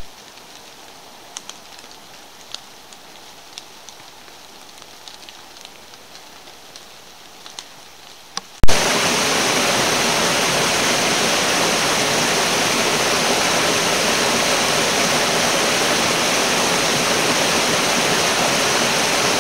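Rain falling in the forest, a soft hiss with scattered sharp drop ticks. About eight and a half seconds in it cuts suddenly to a small cascade pouring over stone ledges, a much louder, steady rush of water.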